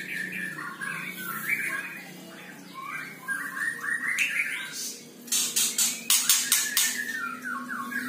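White-rumped shama (murai batu) calling in its cage: a string of short, harsh chattering notes with quick upward slurs, not full song. A run of sharp clicks comes about five to six and a half seconds in.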